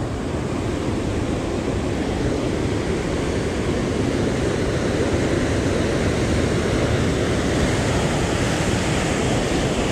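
Sea surf churning and washing over shoreline rocks, a steady, even rush of water.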